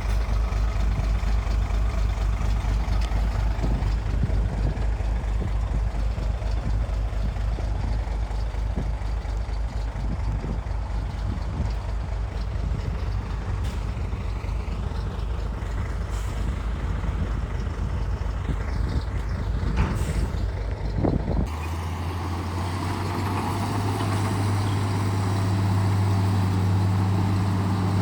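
Heavy diesel earthmoving machinery running: a deep, pulsing engine rumble, with a few sharp knocks near the end of it. About three-quarters of the way through, the sound switches abruptly to a steadier engine hum.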